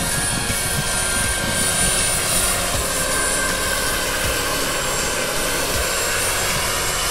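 Radio-controlled scale model SA 315 Lama helicopter flying past: a steady rotor and engine sound with a thin, high, steady whine.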